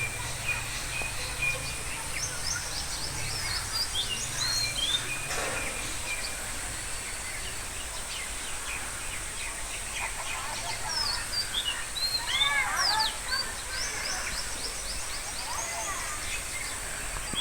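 Several birds chirping and calling in quick short notes and sweeping phrases, busiest about twelve seconds in, over a steady high-pitched hiss and a low background rumble.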